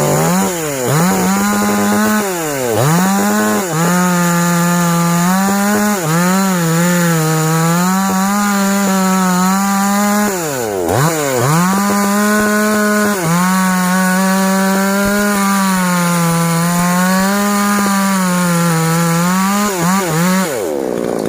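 Daiho DCS 5800 Pro two-stroke petrol chainsaw running at high revs while cutting through tree wood, its pitch wavering under load. The engine drops off and revs back up about four times as the throttle is let off and squeezed again.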